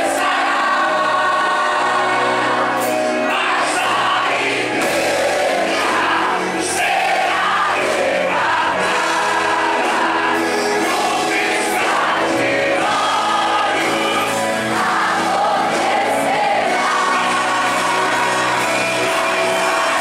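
Live gospel worship song: a lead singer over an amplified band, with the congregation singing along.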